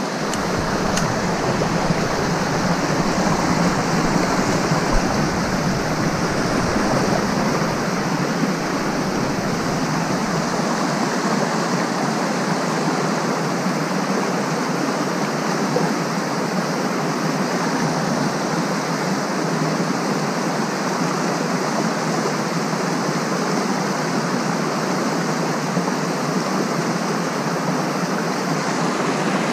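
Small mountain creek rushing over rocks and boulders: a steady rush of white water. A low rumble sits under it for about the first ten seconds.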